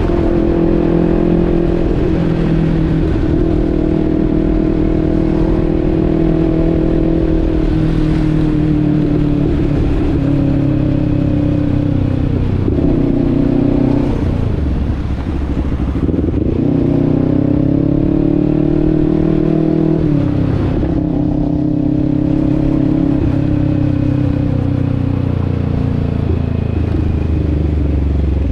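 Motor vehicle engine running while driving. Its pitch drifts down and rises again as the revs change, with clear drops about halfway through and again about two-thirds of the way in, like gear changes.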